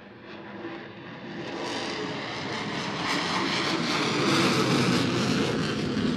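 Sukhoi Su-35 fighter's twin jet engines heard as it flies by, a rushing jet noise that swells from about a second in and is loudest near the end.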